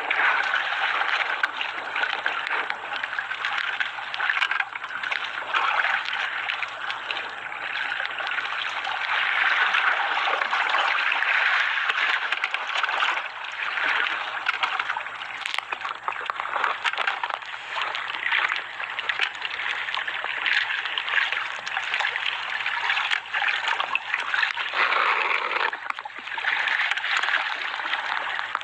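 Sea water splashing and sloshing against a small outrigger boat's hull and bamboo float, a continuous rushing that swells and eases with the waves.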